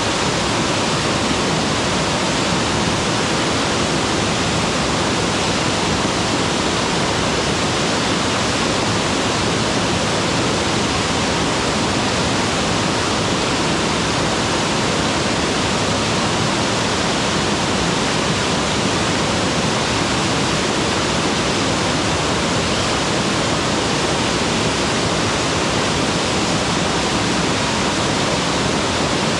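Mountain waterfall pouring steadily, a dense unbroken rush of falling water with no change in level.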